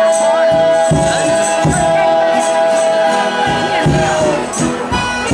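Folia de Reis folk music: a long high note held for about four seconds over a steady beat of low thumps and a jingling tambourine, fading out near the end.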